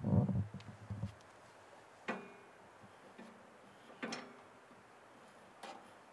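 Handling of a Nexgrill tabletop gas grill's control knob: a low knock in the first second, then a few sharp clicks, each with a brief ringing tail, about two seconds apart.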